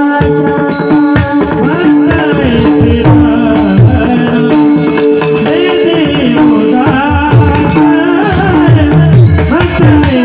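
Marathi devotional kirtan music: a woman singing over a steady held drone, with tabla strokes and small hand cymbals keeping time.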